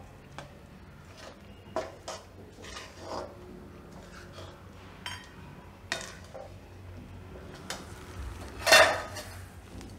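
Metal spatula stirring grated coconut and mawa in a metal kadai, with scattered scrapes and clinks against the pan and one louder clatter near the end.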